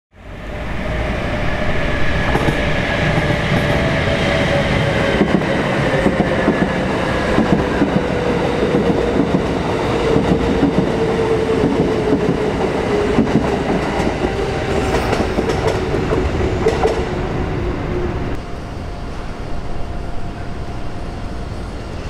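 Electric commuter train running past at close range, its wheels clattering over the rails, with a motor whine that slowly falls in pitch. The sound eases a little near the end as the train moves off.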